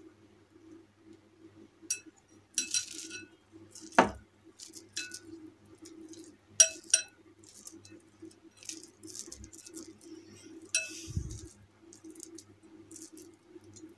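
Glass mixing bowl clinking and tapping as hands scoop a crumbly coconut and milk-powder modak mixture from it: scattered light clinks, a louder knock about four seconds in and a dull thump near eleven seconds. A faint steady hum runs underneath.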